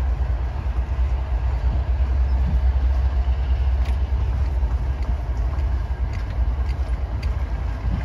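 Steady low rumble of a car driving slowly, heard from inside the cabin: engine and road noise.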